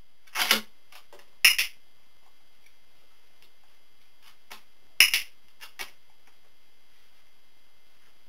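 A few sharp clicks and knocks as a dog works on a rocking wobble board during clicker training: two loud ones in the first two seconds, then a quick cluster about five seconds in.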